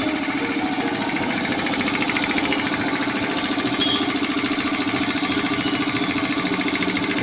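Belt-driven piston air compressor with a 1.5 HP motor running steadily under load, its pump chugging in a fast, even rhythm as it builds pressure in the 110-litre tank.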